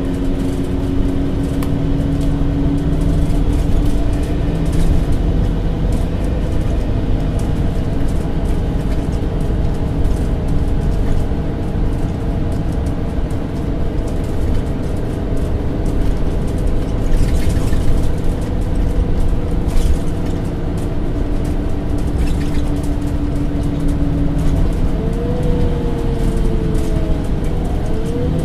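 MAN Lions City CNG city bus driving, heard with its steady engine drone and road rumble. Near the end the engine pitch rises, dips and rises again as the bus changes speed.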